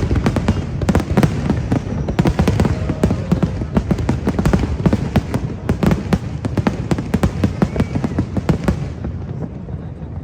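Fireworks going off in a dense, rapid barrage of bangs and crackles, many per second, dying away near the end.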